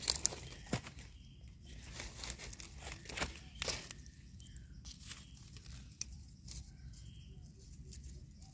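Dry leaf litter and twigs rustling and crackling underfoot as someone scrambles through forest undergrowth, with scattered sharp snaps.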